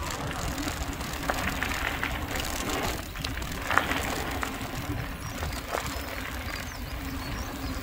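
Mountain bike rolling fast down a gravel trail: tyres crunching over loose stones with wind rumbling on the handlebar-mounted microphone, and scattered clicks and rattles from the bike, the sharpest knock a little under four seconds in.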